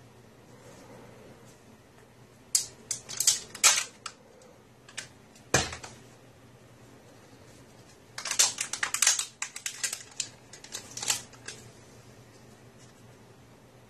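Irregular sharp clicks and clacks of small hard objects being handled, in two quick clusters, with a single louder knock between them.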